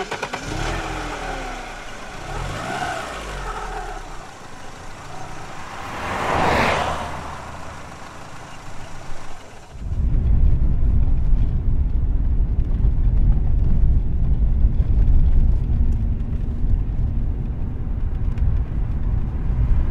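City street traffic: vehicles driving by, one passing close about six seconds in. About ten seconds in it gives way to a louder, steady low rumble.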